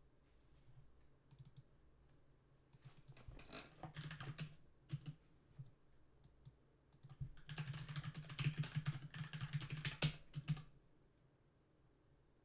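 Typing on a computer keyboard: two runs of quick keystrokes, the second longer and louder, stopping a couple of seconds before the end.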